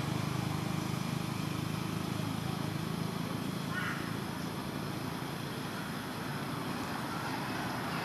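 Steady low background rumble, with a faint brief high chirp about four seconds in.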